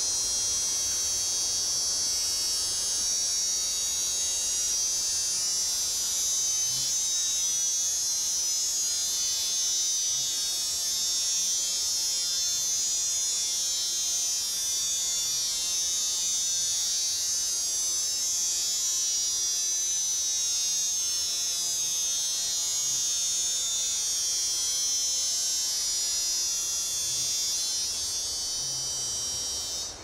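Steady, high-pitched buzzing drone that holds an even level throughout and cuts off suddenly at the end.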